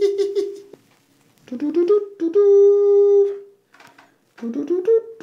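A man humming wordless sing-song notes. He sings three long held notes, each sliding up into a steady pitch.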